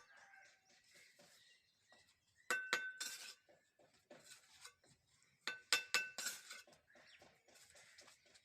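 Faint sharp metallic clinks in two short clusters of a few strikes each, about three seconds apart, each with a brief ring.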